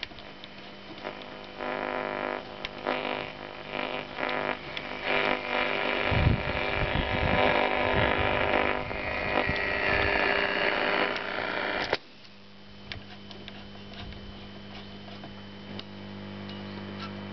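Philips Philetta 213 valve radio's loudspeaker giving static and interference, with a whistle near the middle, as it is switched between bands and tuned off-station, with clicks from the push-buttons and knobs. About twelve seconds in the noise cuts off suddenly, leaving a steady low mains hum.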